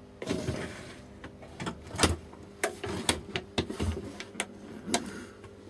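Knocks, bumps and scrapes of handling on a workbench as objects are shifted and a bench-top oscilloscope is turned round, about a dozen irregular clatters with the loudest about two seconds in.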